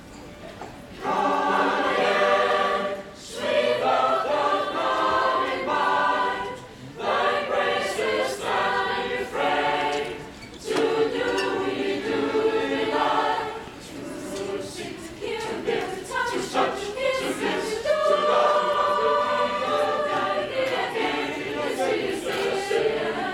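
A youth choir singing together under a conductor, starting about a second in, in phrases broken by short pauses.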